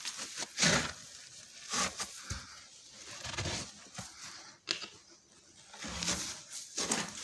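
Irregular footsteps scuffing and crunching on grit and debris on a concrete floor, a short gritty scrape every second or so, with rustling from the camera being handled.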